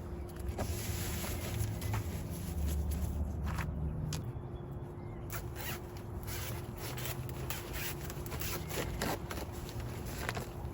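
Rustling and scraping from hands-on garden work, with many short clicks and snaps scattered through it over a low steady rumble.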